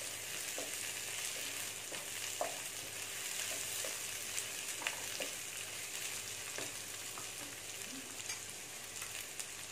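Sliced vegetables and bell peppers stir-frying in sunflower oil in a kadai: a steady sizzle, with a few short scrapes and taps of the spatula against the pan as they are stirred.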